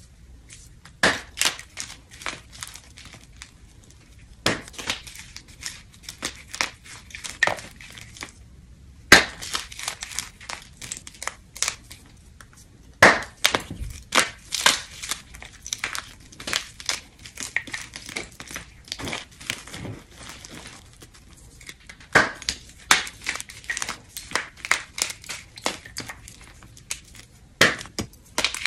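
Blocks of gym chalk crushed and crumbled by hand into a clear bowl of broken chalk: bursts of dense, sharp crunching and crackling as the blocks break, with short pauses between handfuls.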